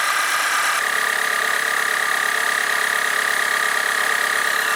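12 V portable digital tyre inflator's small electric compressor running steadily under load while pumping up a motorcycle tyre, with a loud buzzing whine. Its pitch steps up a little about a second in.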